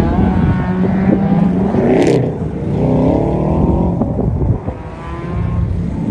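Exocet kit car's 2.4-litre Ecotec four-cylinder engine revving up and down as it is driven hard through an autocross course, with a short burst of noise about two seconds in.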